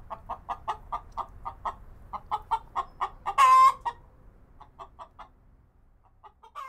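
A hen clucking in a quick run of short clucks, about six a second, that breaks into one longer, louder squawk about three and a half seconds in, then goes on in sparser clucks.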